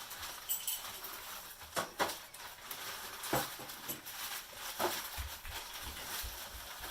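Kitchen clatter: a few sharp knocks of dishes or utensils being handled, over a steady faint hiss.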